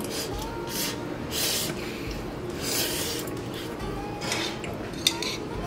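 Noodles being slurped and chewed close to the microphone: a handful of short, wet slurps over background music.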